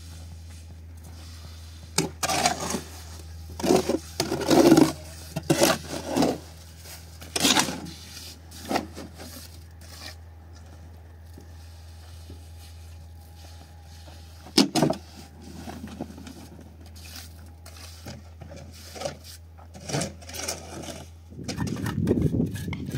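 Irregular bouts of scraping and rough rubbing against a hard surface, with a single sharp knock about halfway through, over a steady low hum.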